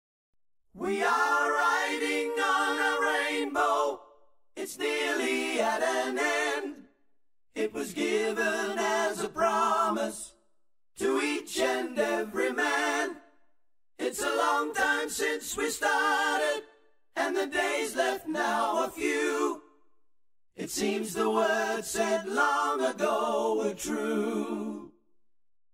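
Unaccompanied voices singing a cappella in seven short phrases of two to four seconds, with brief pauses between them.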